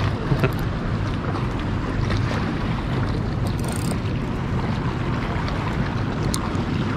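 Steady wind buffeting the microphone, with the sea washing against the rocks beneath it.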